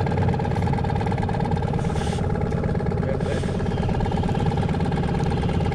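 Small outboard motor running steadily at trolling speed.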